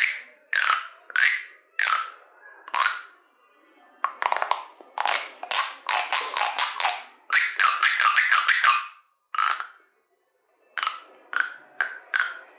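Plastic pop tube toy being stretched and squashed, its ridged segments snapping open and shut in a string of sharp pops. Single pops at first, then quick runs of them in the middle, and a brief pause before a few more.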